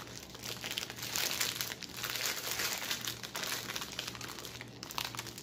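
Clear plastic wrapping crinkling as a wrapped item is handled, with an irregular patter of small crackles.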